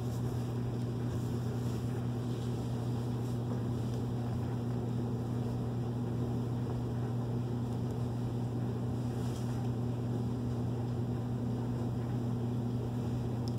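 A steady low hum with no breaks or changes.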